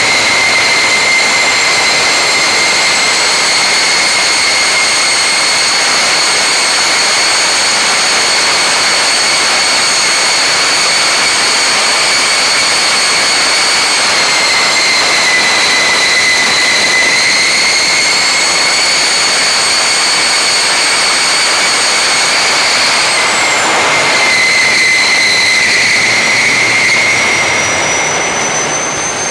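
Homemade turbojet built from a large HX80 turbocharger, running flat out on a test stand with its afterburner lit: a loud steady roar with a high turbine whine. The whine sags slightly in pitch about halfway through and again later, and the roar eases off near the end.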